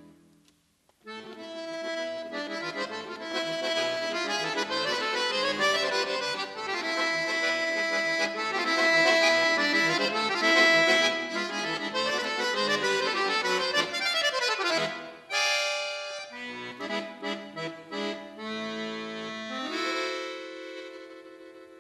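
Chromatic button accordion playing a fast Spanish-style passage of full chords and melody after a short pause at the start. About two-thirds of the way through it breaks off into a run of short, detached chords, then settles on a held chord that fades away.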